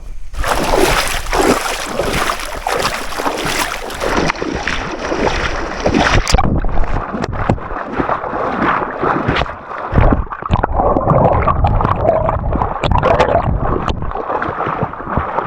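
Legs splashing and sloshing through river water while wading across. A dense rush of splashing for about the first six seconds, then separate splashes stride by stride.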